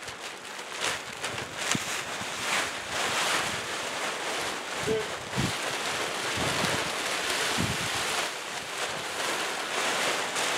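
Plastic tarps rustling and crinkling in surges as they are pulled and dragged off a wooden shelter frame.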